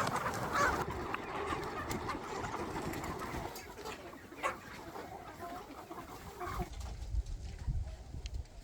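A flock of chickens clucking, busiest in the first few seconds and then thinning out, with one sharp click midway. A low rumble comes in near the end.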